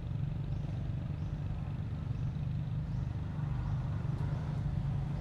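Steady low hum of an engine running, even throughout.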